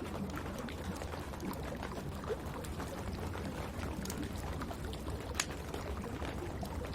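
Wood fire crackling in a fireplace, irregular sharp pops over a steady hiss of rain, with one louder pop about five seconds in.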